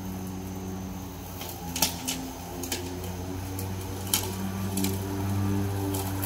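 Cordless electric lawn mower running with a steady motor hum as it cuts grass, getting a little louder near the end as it comes closer, with a few sharp clicks along the way.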